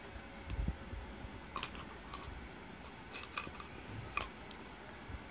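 Plastic grinder jar being handled: a low thump about half a second in, then several light, sharp clicks and taps of plastic.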